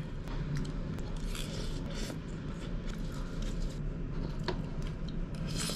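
Cup noodles being eaten: chopsticks and a spoon scraping and clicking in a paper noodle cup as noodles are lifted, in small scattered sounds over a steady low hum.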